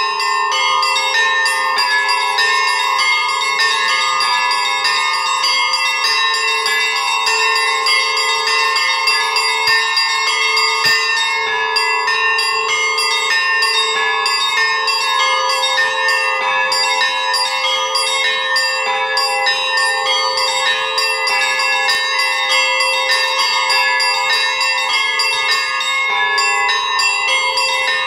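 Russian Orthodox church bells rung by hand in a continuous peal: quick, dense strikes on the small high bells over the steady ringing of lower bells.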